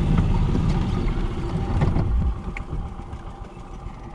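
Golf cart driving over a grassy, bumpy trail: the cart's running drive and the knocks and rattles of its body over the ground. About two seconds in it suddenly gets much quieter as the cart slows.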